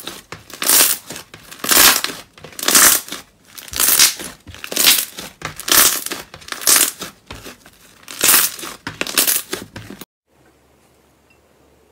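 Slime being squeezed and pressed by hand in a steady rhythm, each squeeze a short noisy burst, about one a second. It cuts off suddenly about ten seconds in, leaving faint room tone.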